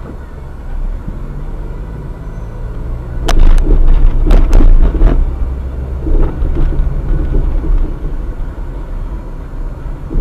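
A train passing over a level crossing: a heavy rumble with a run of sharp clacks as the wheels cross the rail joints, loudest from about three to five seconds in, then softer clacks trailing off.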